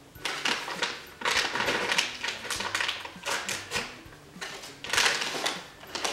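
Crinkly plastic treat pouch being torn open and rustled by hand, in several bursts of crackling.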